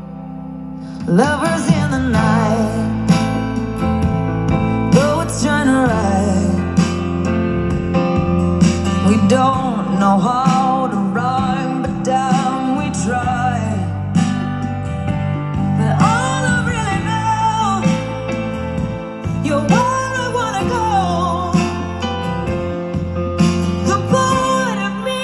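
A song with singing and guitar, played back through a 1968 VEF Rapsodija valve radiogram's loudspeaker. It starts up about a second in after a quieter moment.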